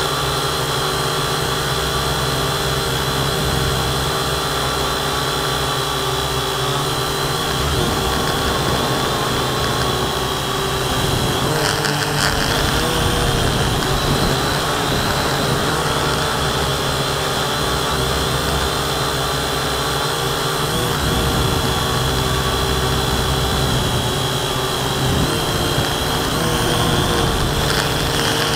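Syma X8C quadcopter's motors and propellers running steadily in a hover, heard from a camera mounted on the drone itself: a steady whine with several held tones over a noisy rush.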